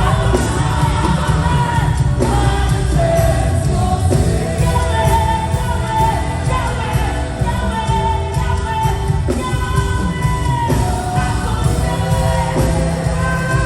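Live gospel worship music: a singer holding long notes over a band with a heavy, steady bass.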